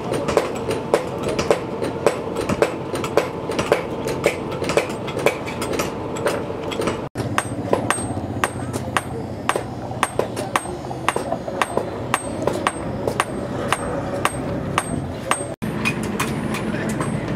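Blacksmith's hammer striking steel on an anvil, a few blows a second in a steady rhythm, over a constant background noise. The sound cuts out briefly twice.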